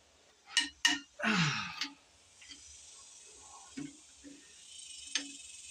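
A few sharp metal clicks of a socket and speed wrench on the cylinder-head bolts of a Dodge 360 V8, with a short breathy rush about a second in. Later there are a couple of faint clicks over a low steady hiss.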